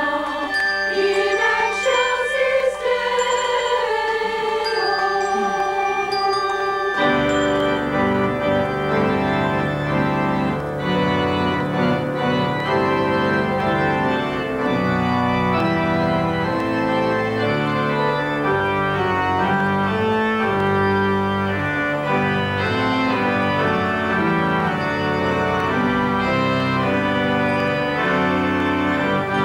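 A church choir singing. About seven seconds in, a large Holtkamp pipe organ enters and plays sustained full chords with deep pedal bass.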